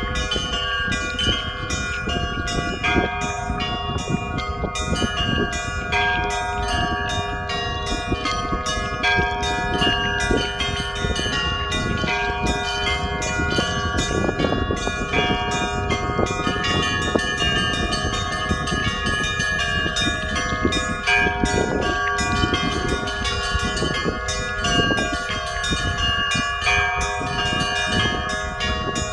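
Church bells being rung: several bells of different pitches struck in quick, overlapping strokes, their tones ringing on continuously, over a low rumble.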